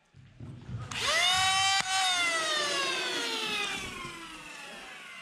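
Motors of a flywheel foam-dart blaster spinning up to a high whine about a second in, with one sharp click. The whine then winds down in a long, slowly falling pitch as the flywheels coast.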